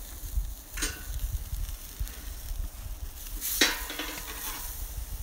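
A knife cutting the tail off a skinned wild rabbit carcass on a log, with two short sharp sounds, about a second in and halfway through, the second the louder, over a low rumble.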